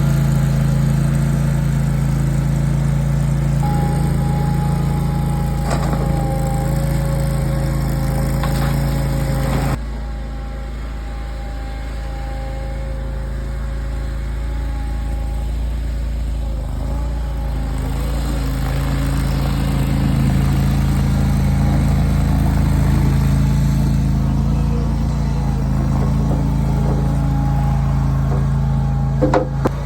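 An engine running steadily with a low, even hum. A short knock comes near the end.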